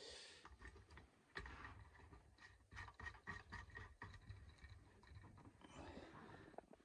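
Faint, irregular clicks and light scraping as a braided flexible hose's connector nut is screwed by hand onto a Grundfos shower pump's port.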